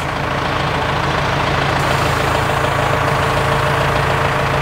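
Kubota M6-142 tractor's diesel engine running steadily at low revs, a little louder after the first second.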